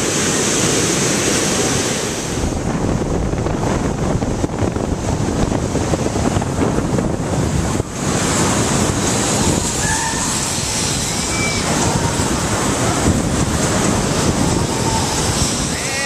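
Rough ocean surf breaking and washing up the beach, with wind on the microphone.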